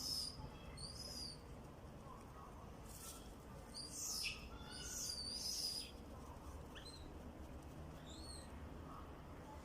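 High-pitched squealing calls from monkeys: two near the start, a denser run of calls from about four to six seconds in, then a few short chirps.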